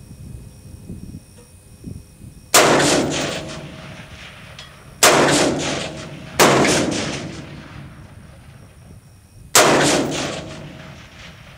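Four rifle shots from a Palmetto State Armory AR-15 in .223, fired at irregular intervals, each a sharp crack trailing off slowly over a second or two as it echoes.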